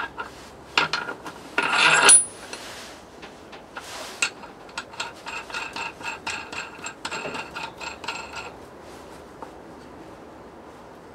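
Metal tools and parts being handled: scattered clinks and knocks, a louder scrape about two seconds in, then a quick run of light ringing clinks that stops about three seconds before the end.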